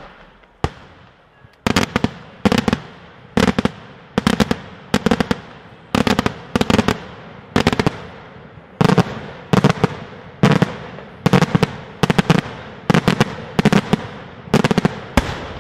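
Daylight fireworks: aerial shells bursting overhead in quick succession, about one loud bang a second, each bang echoing away before the next.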